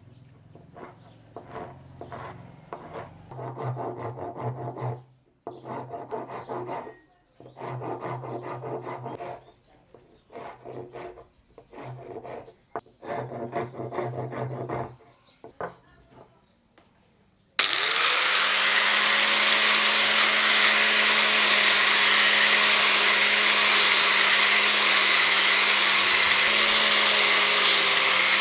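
Hand-tool strokes working wood, coming in runs of a few seconds with short pauses. About two-thirds of the way through, an electric power tool switches on abruptly and runs steadily with a hum and hiss, louder than the hand work.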